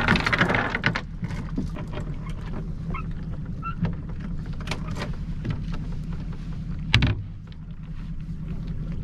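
Boat anchor rope and chain being hauled aboard by hand and fed into the bow locker: scattered rattles and knocks, a loud rustling burst at the start and one loud clunk about seven seconds in, over a steady low hum.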